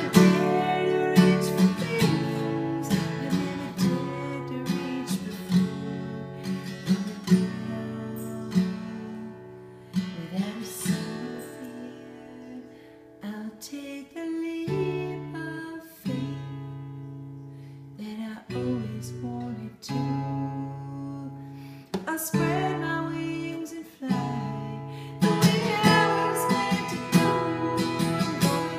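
Acoustic guitar strummed, with a woman singing along. The playing thins to sparse, softer chords in the middle and builds back to full strumming near the end.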